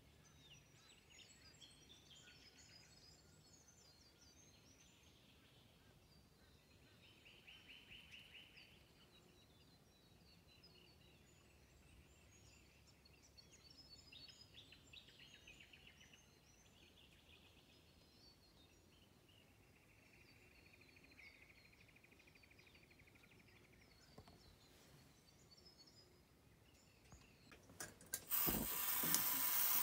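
Faint birds chirping and giving short buzzy trills across calm water. A few clicks come near the end, then a portable gas camping stove lights and runs with a loud, steady hiss.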